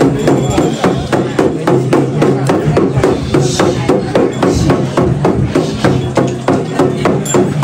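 Jhakri shaman's dhyangro frame drum beaten in a fast, even rhythm, about four strokes a second.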